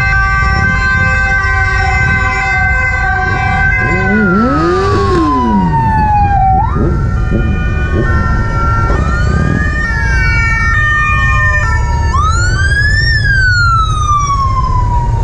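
Police motorcycle sirens sounding: for the first few seconds they hold steady tones, then they glide down and rise and fall in slow wails. Underneath is the steady low rumble of many motorcycle engines.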